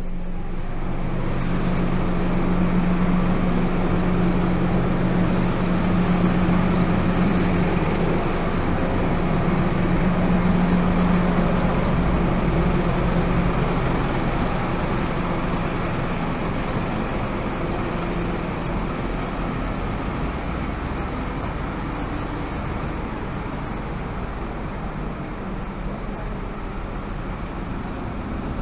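Coach bus engine idling: a steady low hum over a steady wash of noise, slowly fading through the second half.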